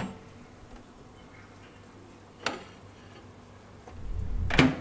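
Microwave oven running with a faint buzzing hum, a sharp click about two and a half seconds in, and a rising rumble that ends in a loud clack near the end.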